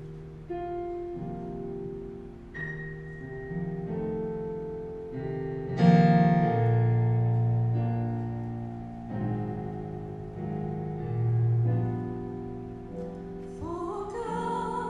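Slow piano music: sustained chords, the loudest struck about six seconds in. Near the end a singer's voice with vibrato comes in.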